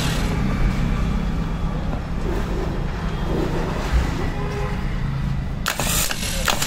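An engine running steadily with a low hum, with a short rush of hiss near the end.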